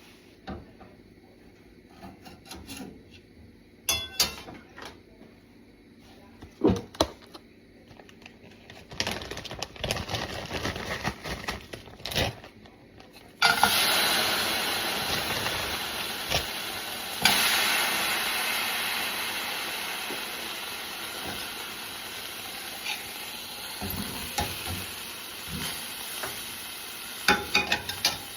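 Utensils clinking and knocking against a pan and bowl, then about halfway through a sudden loud sizzle as food goes into hot oil. The sizzle fades slowly, with a few more clinks near the end.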